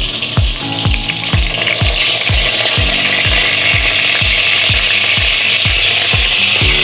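Chicken breasts frying in hot oil in a Dutch oven, a steady loud sizzle. A low, even beat of background music, about three thumps a second, runs underneath.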